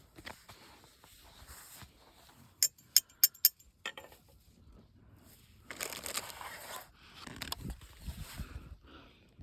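Handling noises: four sharp clicks in quick succession, then two spells of rustling and crinkling.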